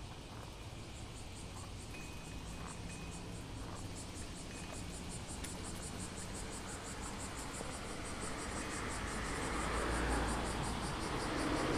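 Street ambience during a bicycle ride: a rapid, even, high-pitched ticking runs through, over a low rumble, and the noise of an approaching vehicle swells over the last few seconds.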